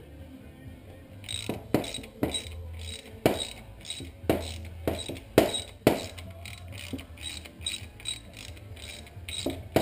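Hand ratchet wrench clicking in strokes as a bolt is turned, with sharp metallic knocks between strokes; it starts about a second in.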